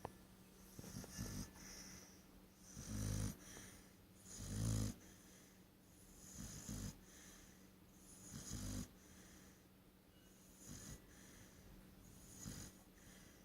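Pit bull snoring, one snore every couple of seconds, about seven in all; the loudest two come about three and five seconds in.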